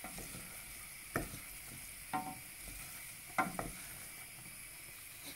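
Sliced green peppers in a tomato-puree spice paste sizzling in a stainless steel pan while a wooden spoon stirs them, scraping against the pan four or five times.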